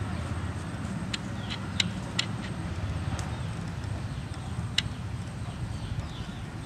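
Leaves being plucked by hand from a plant: a handful of short, sharp snaps of stalks breaking, about six in the first five seconds, over a steady low rumble.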